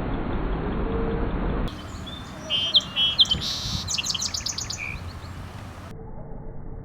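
A bird calling in a series of short, high chirps and a quick run of rapid repeated notes, after a stretch of low background noise.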